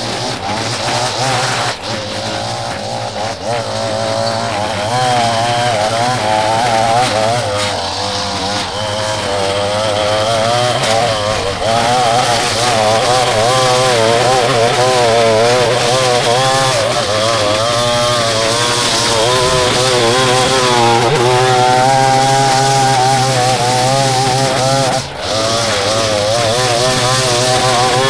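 Gas-engine string trimmer running while cutting thick overgrown grass, its engine speed wavering up and down as the line bites into the growth. The engine drops off briefly near the end.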